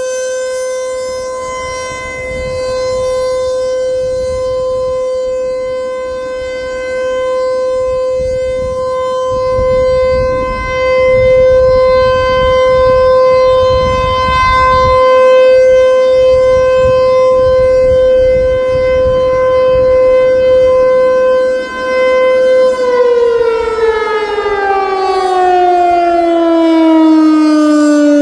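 ASC Tempest T-128 electromechanical outdoor warning siren sounding a steady, loud single tone during a siren test. About 23 seconds in, it begins winding down, its pitch falling steadily.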